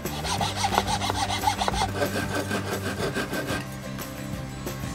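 Hand saw cutting into oak in quick back-and-forth strokes, about four a second, stopping about three and a half seconds in.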